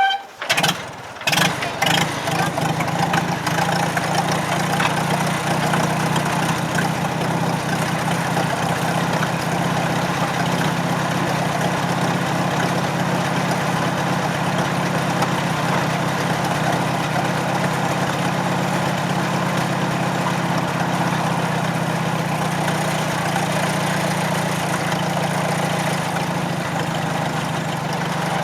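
McCormick W-4 tractor's four-cylinder engine starting: it fires unevenly for the first couple of seconds, then settles into a steady run.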